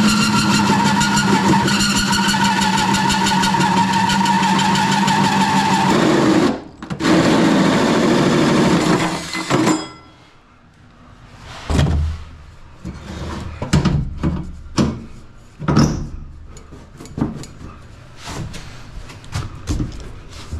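A motor runs loud and steady for about ten seconds, dipping briefly a little past six seconds in, then cuts off. Scattered knocks and clatter follow.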